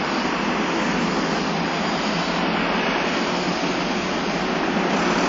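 Steady rush of street traffic, with cars and streetcars on the road. It swells slightly near the end as a streetcar draws closer.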